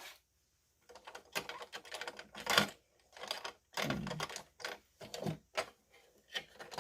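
Irregular small clicks and clatter of sewing machine accessories being handled: presser feet and their storage case.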